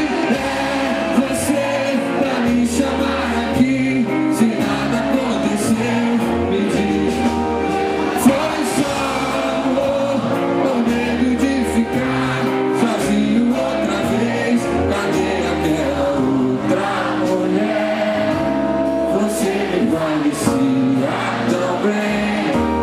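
Live rock band playing: electric guitars, bass and a drum kit with frequent cymbal strokes, with a male voice singing into the microphone.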